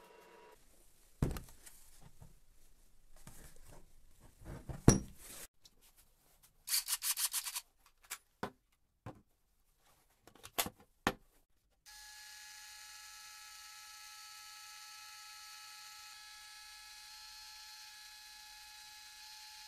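A few sharp knocks, the loudest about five seconds in, and a quick rattle of clicks. Then, from about twelve seconds in, the steady, even whine of a Greenworks cordless electric jack's motor running as it raises the ram.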